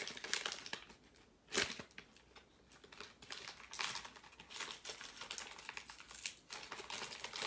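Hockey card pack wrapper crinkling and tearing as it is opened by hand, in irregular crackles with a louder rip about a second and a half in and a brief lull before the crinkling picks up again.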